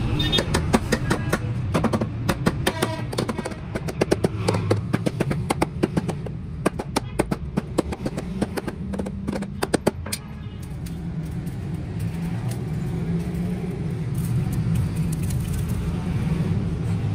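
Hard plastic top cover being knocked and pressed down onto a 12-volt lead-acid battery case: a quick run of sharp clicks and knocks over about the first ten seconds, over a steady low rumble.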